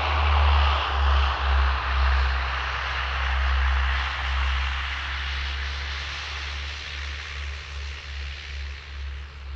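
Twin-turboprop Saab 340 rolling out on the runway after landing: a steady engine and propeller rush with a low rumble underneath, fading gradually as the plane slows and moves away.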